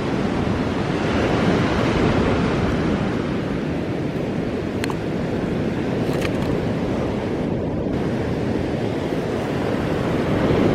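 Surf washing onto a sandy beach: a steady rush of waves, swelling slightly near the end.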